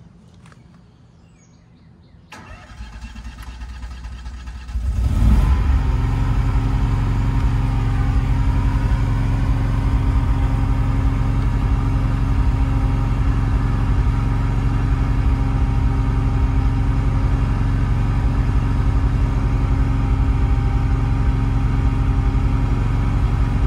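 Kohler 20 kW air-cooled natural-gas standby generator, inside its sound enclosure, starting up about two and a half seconds in. It comes up to a steady run about five seconds in and then runs evenly with no load.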